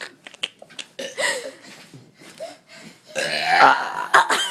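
A girl forcing out burps, with a long, loud burp starting about three seconds in.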